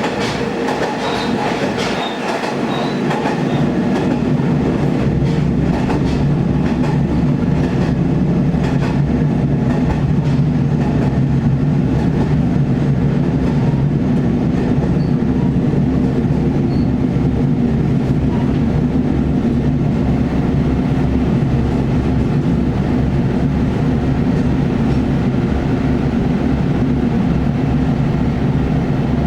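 Diesel railcar's engine running steadily, heard from aboard the train, with a low droning hum over a rail rumble; it grows a little louder in the first few seconds, then holds steady.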